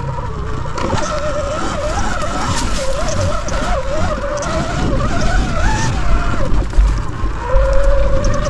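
Sur Ron electric dirt bike's motor and drivetrain whining while riding, the pitch wavering up and down with throttle and speed. A heavy low rumble and rattle from the ride run underneath.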